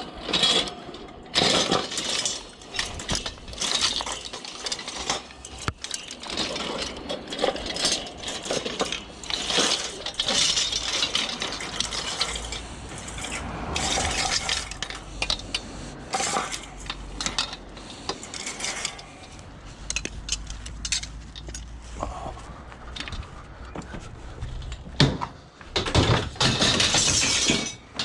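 Scrap metal being handled and thrown together: an irregular run of metal clanks, clinks and rattles, noisy throughout, with busier clusters of knocks near the start and near the end.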